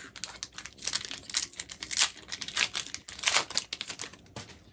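Foil booster pack wrapper crinkling and tearing: a dense run of sharp crackles, with louder ones about two and three and a half seconds in.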